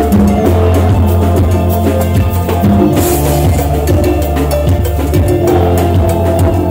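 Live band music played loud: a steady bass line under a drum kit and percussion, with a metal güiro scraped in time.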